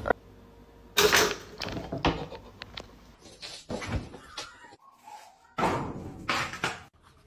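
Several sudden knocks and bangs: a loud one about a second in, smaller ones in the middle, and two more near the end.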